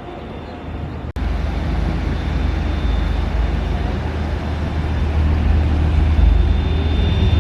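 Steady low rumble of vehicle traffic, briefly cutting out about a second in.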